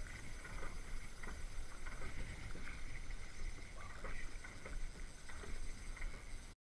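Water running along a rowed drift boat on a river, with scattered light ticks and a low wind rumble on the microphone; the sound cuts off suddenly near the end.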